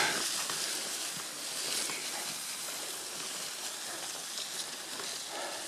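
Bundles of leafy branches and brushwood dragged over the forest floor and through ferns: a steady rustling and scraping with many small crackles of twigs.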